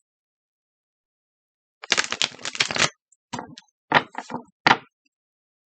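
A tarot deck being shuffled by hand: a quick run of card edges clicking for about a second, starting two seconds in, then a few single card slaps and taps.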